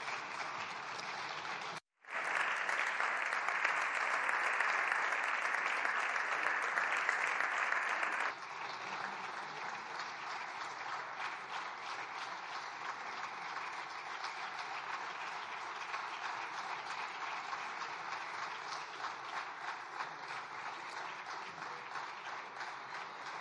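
Members of parliament applauding in the chamber after a speech. The clapping cuts out for a moment about two seconds in, comes back louder, then drops to a steadier, quieter level about eight seconds in.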